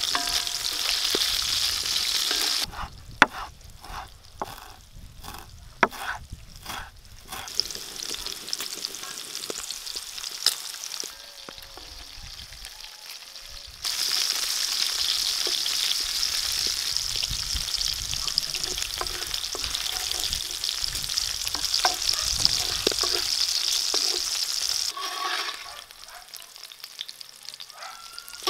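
Diced smoked bacon sizzling in its rendered fat in a black iron pan, stirred with a wooden spatula. The sizzle drops away after about three seconds, giving way to a run of sharp clicks and knocks, then comes back loud and steady from about halfway before fading near the end.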